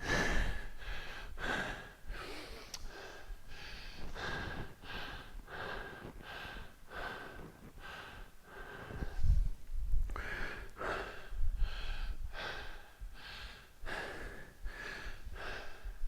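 A man's heavy breathing from exertion: short forceful breaths in and out, about two a second. A faint steady high tone runs underneath, and there is a dull thud about nine seconds in.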